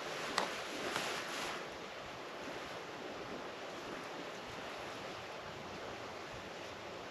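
Steady rushing of wind through bare woods. A single sharp click comes about half a second in, followed by a brief rustle around a second in.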